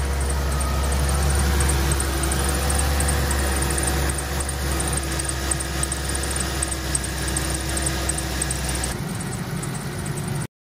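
Ram 1500's 3.6-litre Pentastar V6 idling with its accessory belt drive turning: a steady low hum with faint steady tones above it. The crankshaft damper (harmonic balancer) is worn and vibrating excessively, a fault that causes belt noise. The low hum drops away about nine seconds in.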